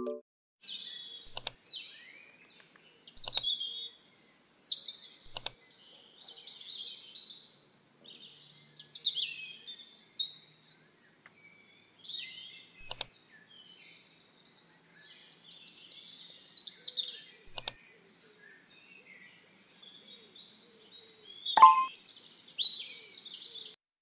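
Small songbirds chirping and twittering in short, scattered phrases, with a few sharp clicks in between; the loudest click comes near the end.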